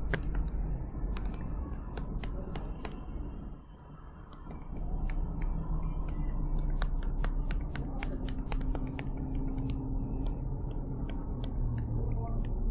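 Irregular sharp clicking at a computer, a few clicks a second, made while erasing pen marks on a slide, over a steady low hum.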